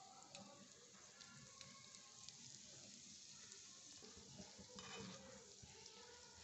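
Faint, steady sizzling of hot oil as small crumb-coated vegetable chops deep-fry in a miniature iron kadai.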